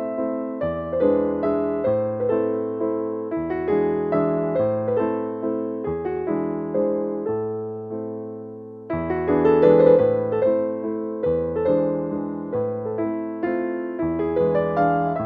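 Background piano music: a gentle melody of struck notes over a changing bass line, with a brief lull about nine seconds in before the next phrase.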